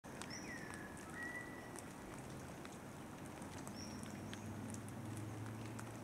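Birds calling: a few short high whistles, and about a second in a clear whistle that slides down and then holds. Scattered light ticks of water splashing from parrots bathing in a shallow puddle run under the calls.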